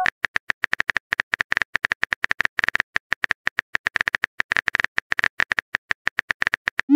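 Simulated phone keyboard typing clicks from a texting-story app: a quick, even run of sharp taps, several a second, as a message is typed. Right at the end a short rising swoop begins, the app's message-send sound.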